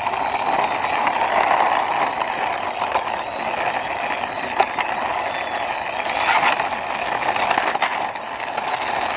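Plastic toy police car pushed by hand along a rough concrete wall, its wheels rolling steadily with a few light clicks.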